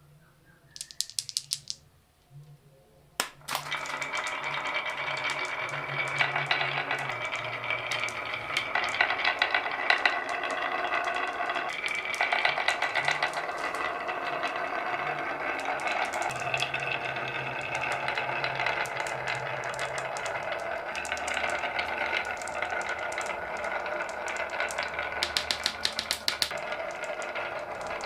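Many marbles rolling and clattering down a wooden marble run and through plastic pipes. A short rattle comes about a second in, then from about three seconds a dense, steady clatter of many clicks.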